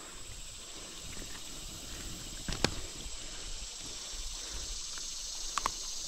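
Faint, steady outdoor hiss, with two brief clicks about two and a half and five and a half seconds in.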